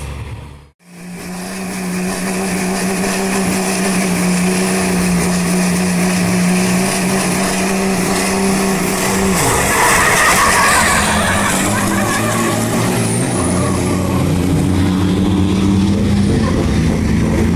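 Racing truck diesel engines running at a drag strip: a steady engine note, then a louder rush of engine and tyre noise about halfway through, with a thin high whistle rising soon after.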